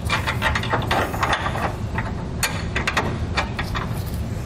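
Metal clicking and clinking as hex bolts and flange nuts are fitted by hand at the air helper spring's top mounting bracket. The clicks come thick and fast for about two seconds, then a few single clicks follow.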